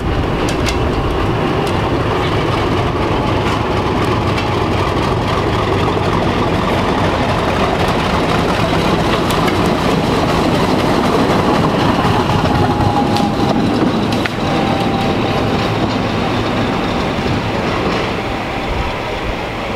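Class 50 diesel locomotive running slowly past with its train: a steady heavy engine note with wheels clattering over the rail joints, and a faint held squeal partway through.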